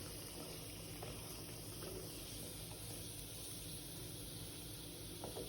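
Tapioca-coated nian gao deep-frying in hot oil during its second fry: a steady soft sizzle and bubbling, with a few faint clicks near the end.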